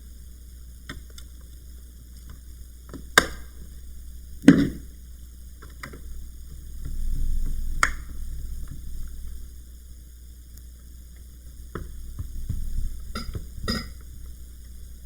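Plastic bottom access cover of a laptop being set in place and pressed down: a few separate sharp clicks and knocks, the loudest about four and a half seconds in and a small cluster near the end, over a steady low hum.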